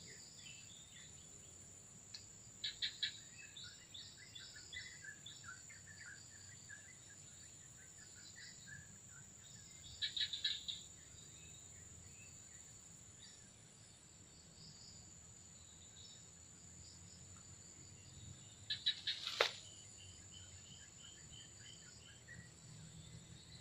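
Insects and birds calling: a steady high insect drone, with bursts of rapid bird chirps three times. One sharp click comes about 19 seconds in.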